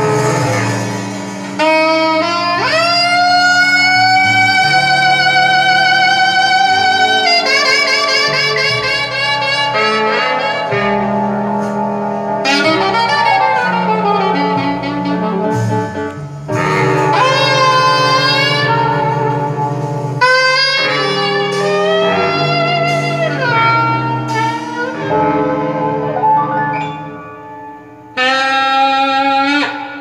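Recorded jazz with a saxophone-like lead melody and accompaniment, played back through a hi-fi system's 22A-style horn loudspeakers under test. Long held notes with vibrato over a steady lower line.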